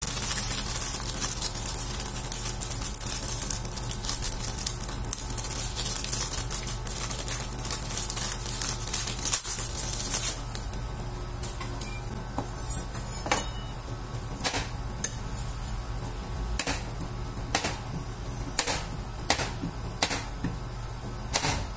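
Plastic ice-pop wrapper crinkling and tearing for about ten seconds, then sharp single metal knocks, roughly one a second, as steel spatula blades chop a frozen passion-fruit ice pop against a stainless-steel cold plate. A steady low hum runs underneath.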